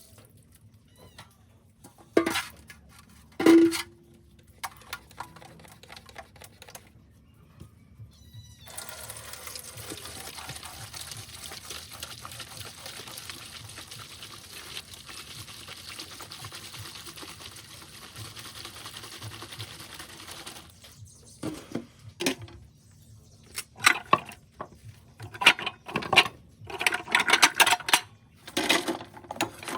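Dishes being washed by hand at a sink. Two dish clinks early on, the second ringing briefly. Tap water then runs steadily for about twelve seconds, and a run of clattering plates and cutlery follows near the end.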